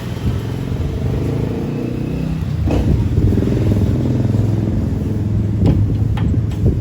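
Single-cylinder engine of a Honda CG Fan motorcycle running steadily, growing a little louder about three seconds in, with a few sharp clicks over it. The bike is brought in for a noise in the engine.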